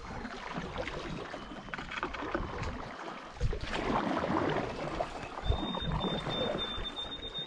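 Canoe paddles stroking through a calm creek, water splashing and dripping off the blades, louder for the second half.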